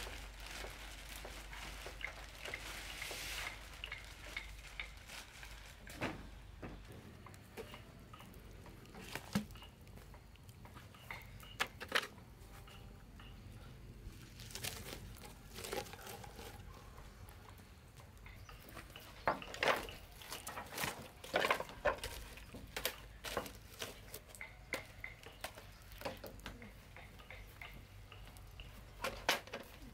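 Scattered clicks and knocks of logs and sticks being handled at an open wood fire, with a plastic bag rustling in the first few seconds and a denser run of knocks about two-thirds of the way through.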